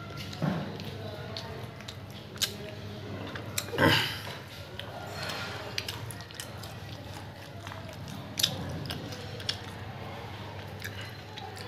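A person chewing roti and dry chickpea curry close to the microphone: wet mouth smacks and small clicks, with one louder sound about four seconds in.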